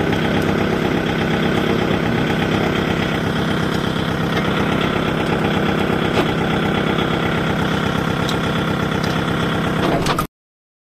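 Kubota MU5502 tractor's four-cylinder diesel engine idling steadily with an even knock, until the sound cuts off abruptly near the end.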